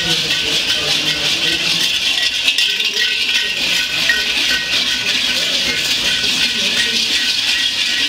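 Many large bells worn on the belts of fur-costumed Perchten clanging and jangling together as the figures walk, a steady, dense ringing with no pauses.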